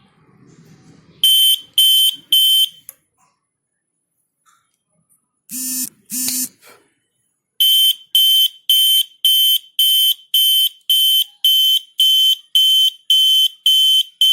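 Gas leak detector alarm beeping: three sharp, high-pitched beeps shortly after the start, two shorter lower-pitched tones around the middle, then steady repeated beeping at about two beeps a second as the alarm is set off in a test.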